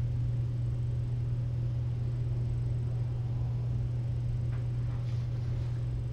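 Steady low background hum with a faint tick about four and a half seconds in.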